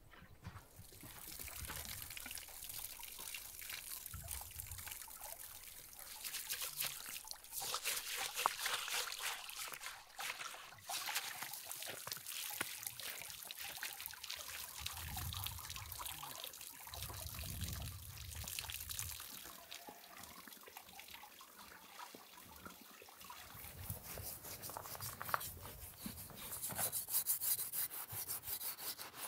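Water running from a hose over a sturgeon's skin and dripping off, with a scouring pad rubbing the skin. Near the end, a knife blade scrapes across the skin in quick, even strokes.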